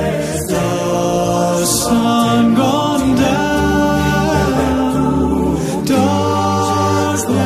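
Background music: slow choral singing in held chords that change every second or so.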